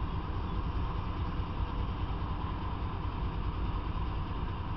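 Diesel freight locomotive idling: a steady low engine rumble.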